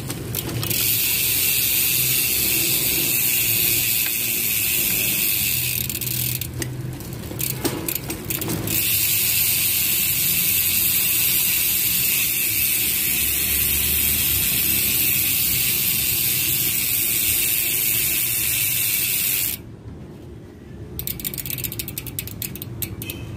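Mountain bike rear freehub buzzing loudly as the wheel spins freely with the cranks still, its pawls ratcheting into one fast continuous buzz. It breaks into separate clicks for a couple of seconds about seven seconds in. The buzz stops near twenty seconds and comes back as slower single clicks near the end.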